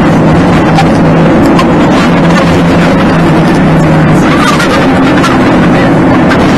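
Car engine hum and road noise heard from inside the cabin while driving, sped up to double speed so the drone sits higher than normal. The sound is loud and steady throughout, with a few faint ticks and rattles.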